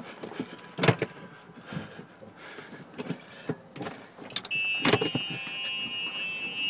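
Handling noise from a phone being carried with its lens covered: irregular bumps and clicks. From about four and a half seconds in, a steady high-pitched whine joins in.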